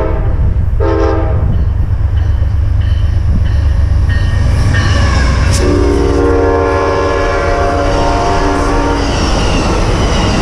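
A train passing close by with a heavy steady rumble, while a locomotive's multi-note air horn sounds a short blast about a second in and then a long blast from near the middle, falling slightly in pitch as it goes on.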